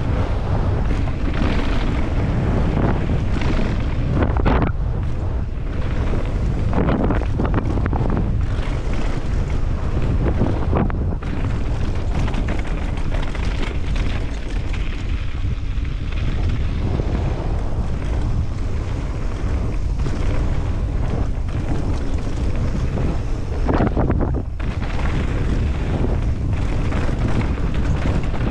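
Wind buffeting a helmet-mounted camera's microphone during a fast mountain-bike descent, a steady low rumble, with uneven bursts of rattling and tyre noise as the bike runs over the dirt jumps and bumps.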